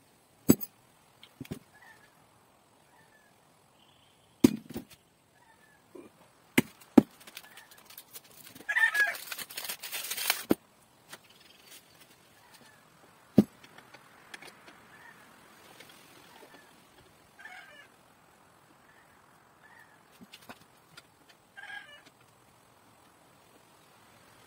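Scattered clicks and metal knocks of hands and tools on a BMX bicycle's parts during assembly, with a loud burst of rustling about nine seconds in. A few short, faint animal calls come later on.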